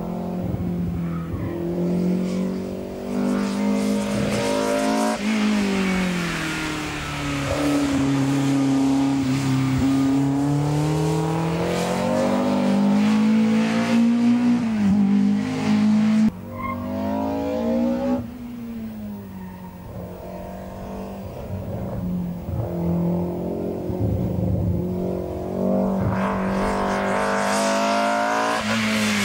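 BMW M3 E30 Group N race car's four-cylinder S14 engine revving hard, its pitch climbing and dropping several times through gear changes and downshifts, with some tyre squeal.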